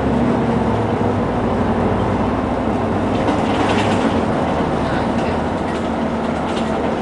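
City bus in motion heard from inside the passenger cabin: engine hum and road noise, steady throughout, with the engine's low hum easing off about a second in.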